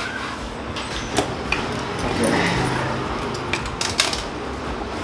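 Sharp metal clicks and clinks from a spanner and hands working the mounting bolt of a motorcycle's stock horn. The clicks come singly about a second in and bunch together near the end.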